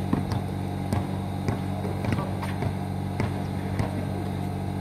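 A basketball bouncing on an asphalt court, several irregular short thuds, over a steady low mechanical hum.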